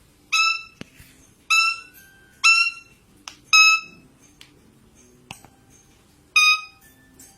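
Parrot whistling: five short, clear notes on the same pitch, about one a second, then a pause before the fifth.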